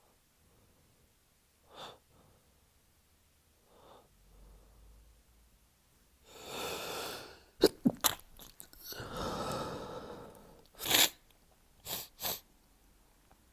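A man's stifled sneezes in a sneezing fit: noisy breaths build up to three sharp, held-in sneezes in quick succession about halfway through. More breathing follows, then another sharp sneeze and two smaller ones near the end.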